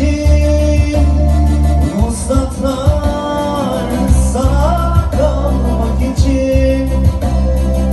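Amplified live band music: a singer's wavering melody over heavy bass and a steady beat.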